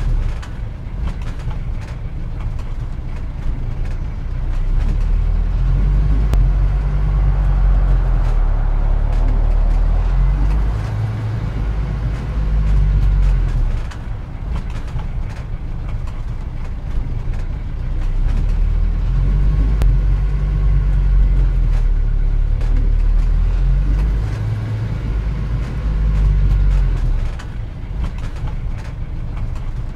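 Added sound-effect track of car engines running on the road: a low rumble whose pitch rises and falls as it swells and eases several times.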